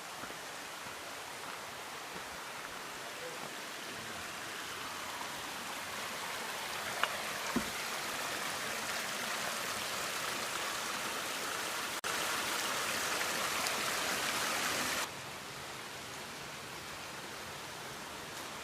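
Rushing water of a mountain waterfall cascade, a steady hiss that grows louder, jumps up about two-thirds of the way in and then drops back suddenly.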